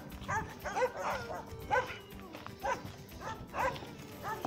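Boerboel dog giving short, high yips and whines over and over, roughly two a second, as it tugs and mouths at the leash, worked up because it wants to be let off to run.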